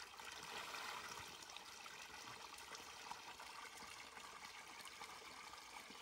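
Faint, steady trickle of natural spring water pouring from a pipe into a shallow pool.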